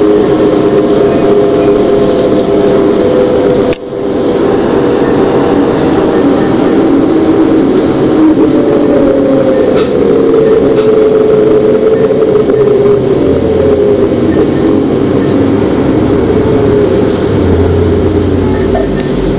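New Flyer E40LFR hybrid transit bus under way, heard from inside: steady drivetrain and road noise with a whine that falls in pitch as the bus slows. The sound cuts out for an instant about four seconds in.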